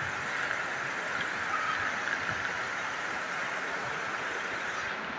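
Steady, even background noise of a large crowded hall, with no clear speech or distinct events.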